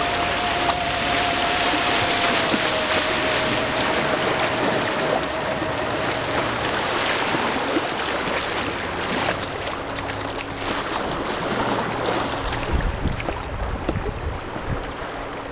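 Whitewater of a small class 1 rapid rushing around a canoe, loud at first and easing off over the second half as the canoe runs out into calmer water. A few low bumps come near the end.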